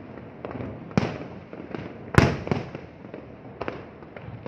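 Fireworks shells bursting overhead: a string of sharp bangs with echoing tails, the loudest about two seconds in, with smaller pops in between.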